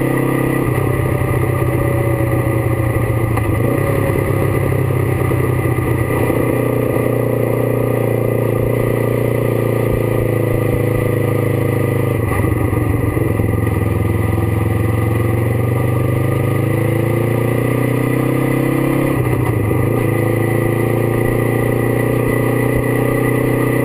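Kawasaki GPZ 500's parallel-twin engine and exhaust running under way, heard close up. The engine note breaks and changes pitch about four times as speed changes, and otherwise rises and falls slowly.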